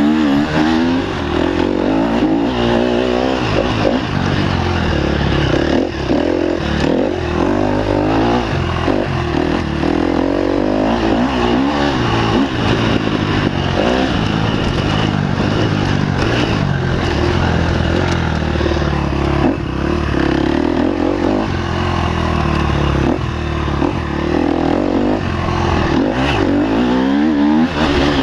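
Enduro dirt bike engine heard from on board while racing over a dirt track, its note rising and falling over and over as the throttle is worked.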